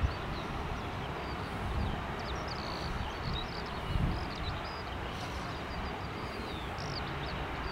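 Boeing 737-400's CFM56-3 jet engines running at low taxi power, a steady distant hiss and rumble, while small birds chirp over it. A few brief low thumps of wind hit the microphone, one right at the start and one about four seconds in.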